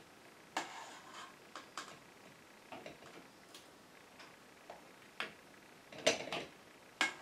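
Metal ladle clinking and scraping against a stainless steel stockpot as hot salsa is ladled into a glass canning jar: irregular light knocks, the loudest a pair about six and seven seconds in.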